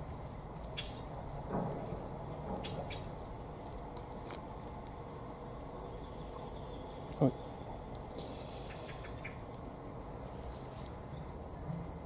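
Small songbirds calling: thin high trills twice, then short high chirps. A single short low falling sound about seven seconds in is the loudest thing.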